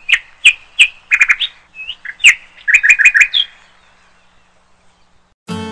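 A small bird chirping: a run of short, sharp chirps and quick trilled notes that stop about three and a half seconds in. Acoustic guitar music starts near the end.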